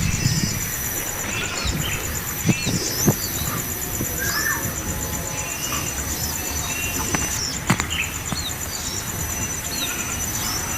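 Short bird chirps and calls scattered throughout, over a steady, pulsing high insect trill, with a few sharp knocks.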